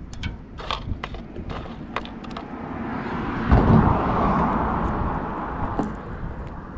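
A vehicle passing on the bridge: a swell of tyre and road noise that builds, peaks about halfway through and fades, after a few sharp clicks of rod and line handling.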